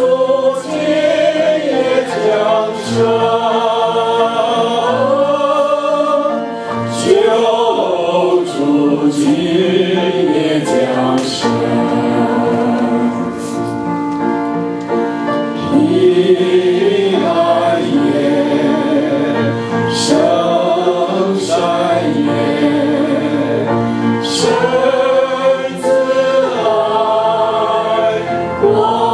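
A small mixed group of male and female voices singing a Christmas hymn in Mandarin into microphones, continuing through the whole passage.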